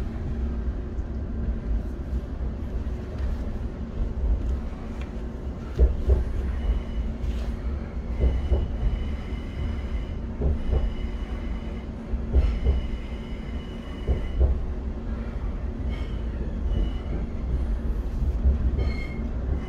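Inside a Class 710 electric train: a steady low rumble and hum. Thin, high wheel squeal comes and goes through the middle, along with knocks about every two seconds.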